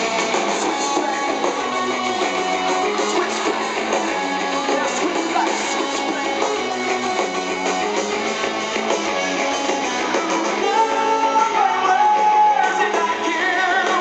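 Rock band playing live over a concert PA, heard from the audience, with electric guitar to the fore over drums and bass.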